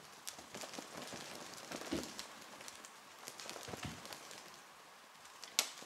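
Cats' paws pattering and scrabbling on a wooden floor as they jump at a string cat toy, with two heavier thuds of landings, about two seconds in and again near four seconds, and one sharp click near the end.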